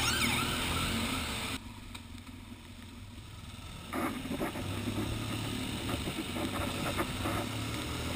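Motorcycle engine and road noise picked up by a handlebar-mounted camera riding in traffic, with the tail of an ambulance siren's wail fading out right at the start. The sound drops away suddenly about a second and a half in and comes back just as suddenly about four seconds in.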